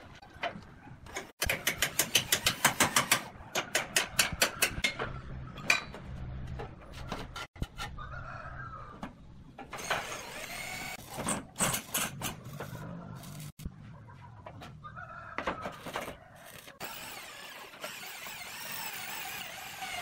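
Roof-tiling work: a rapid run of sharp taps, about seven a second, starting about a second and a half in, then scattered knocks and clatter on the tiles. A few animal calls rise and fall in between.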